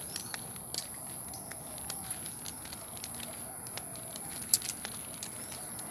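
Quiet outdoor sound during a walk on a paved footpath: scattered light clicks and taps, with one sharper click about four and a half seconds in, over a steady high-pitched whine.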